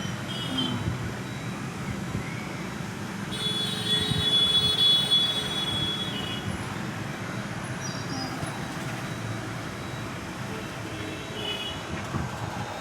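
JCB backhoe loader running steadily, with a loud, high-pitched squeal about three and a half seconds in that lasts a couple of seconds.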